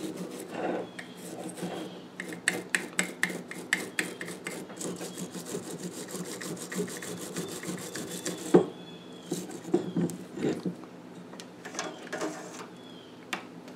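A small hand brush scrubbing a scooter carburetor body: runs of quick, scratchy back-and-forth strokes, with one sharper knock about eight and a half seconds in.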